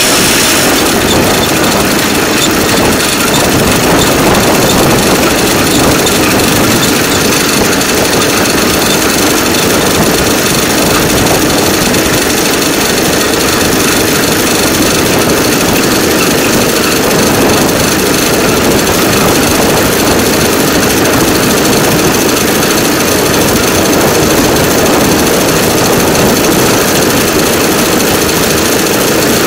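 DL2 motor draisine running along the rails: loud, steady mechanical noise of its engine and steel wheels on the track. A high squeal dies away about a second in.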